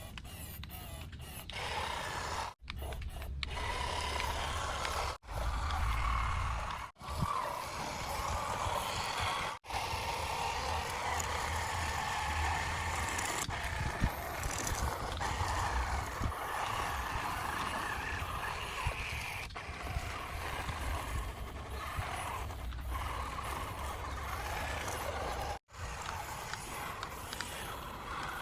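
Small electric motors and plastic gearing of toy RC construction vehicles whirring steadily, with the sound cutting off abruptly several times.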